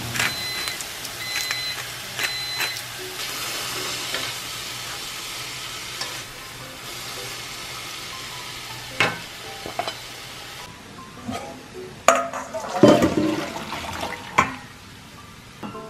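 Bean sprouts sizzling in a hot frying pan as a wooden spatula stirs them, with three short electronic beeps about a second apart near the start. After an abrupt change, water splashes and metal clatters as boiled bean sprouts are poured from a steel pot into a steel colander in a stainless sink.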